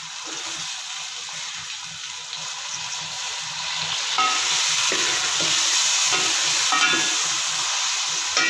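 Chopped tomatoes, fried onions and ginger-garlic paste sizzling in hot oil in a metal pot while a spatula stirs them against the pot. The sizzle grows louder about four seconds in.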